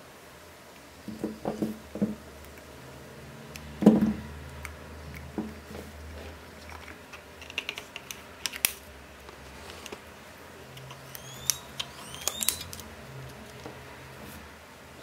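Small clicks and taps of needle-nose pliers twisting a thin copper wire to secure a rubber balloon over a small can part. There is a louder knock about four seconds in and a few short squeaky scrapes near the end.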